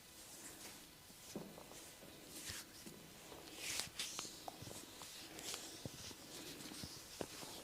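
Hands working over hair and scalp in a head massage: soft brushing swishes of skin rubbing on hair, with a few light taps.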